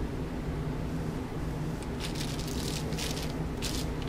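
Faint rustling and a few short scrapes from hands handling a watch and its band over a plastic sheet, under a steady low hum.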